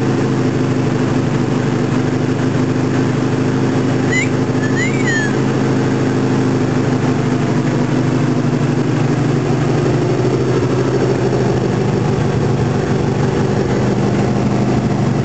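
1981 Suzuki GS650G's air-cooled inline-four engine idling steadily, freshly reassembled and running smoothly, with the pitch settling slightly lower about ten seconds in. The sound is loud and boomy from the small garage.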